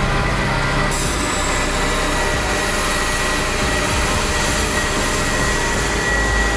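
Heavy mining machinery running: a steady mechanical drone with a constant high whine, and a brighter hiss joining about a second in.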